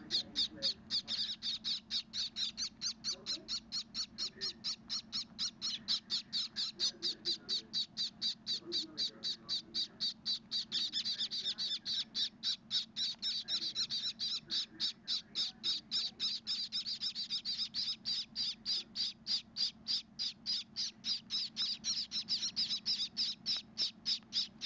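Gouldian finch nestlings begging for food: a fast, steady run of high chirps, about three or four a second, getting louder from about ten seconds in.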